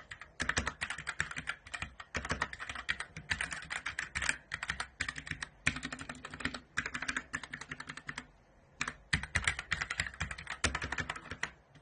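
Fast typing on a Blitzwolf BW-KB1 mechanical keyboard with clicky Gateron blue switches, a rapid clatter of keystrokes with one brief pause about eight seconds in.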